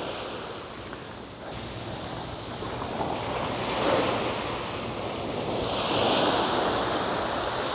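Small waves breaking and washing up a sandy beach, the hiss of the surf swelling and fading with each wave, with wind rumbling on the microphone.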